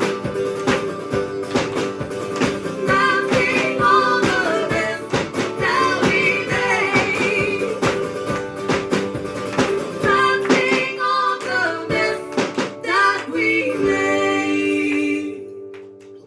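Live band playing the closing bars of a song: women singing over strummed guitar, the rhythm stopping about three quarters through and a last held chord ringing out before it stops just before the end.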